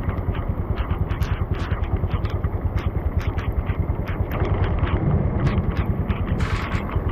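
Motorbike engine running steadily while being ridden, with a rapid, even pulsing.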